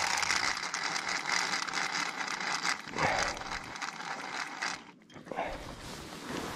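Ice-fishing tip-up spool spinning as line pays out under a sounding weight dropped to find the water depth. It makes a steady whirring hiss that stops abruptly about five seconds in.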